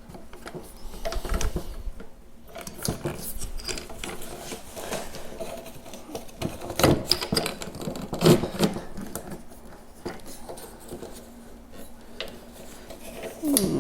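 Plastic and metal parts of a lightweight camera tripod clicking, knocking and rattling as it is handled and worked open, with a couple of louder knocks past the middle.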